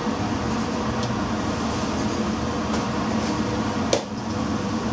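Steady drone of a cargo ship's galley ventilation and machinery at sea. A single sharp tap comes about four seconds in.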